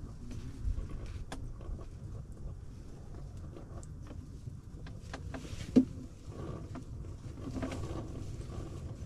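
A low steady rumble inside an ice-fishing shelter, with scattered small clicks and knocks and one sharp knock a little before six seconds in.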